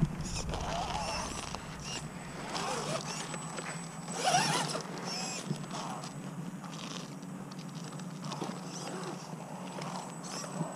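Electric motors and geared drivetrains of 1/10-scale RC rock crawlers whining in short bursts, the pitch rising and falling as the throttle is worked while they crawl over rock.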